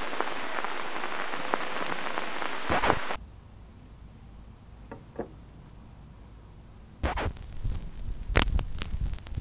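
Vinyl record crackle from a turntable: a hiss full of fine clicks that cuts out about three seconds in, leaving a faint low hum. The crackle comes back about seven seconds in with a low rumble and louder pops.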